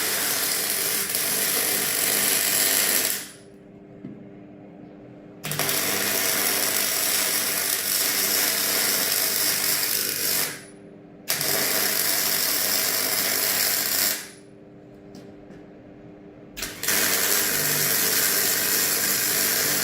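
A power tool running in bursts of several seconds, stopping and starting again three times. Each burst starts abruptly and some trail off more slowly as it stops.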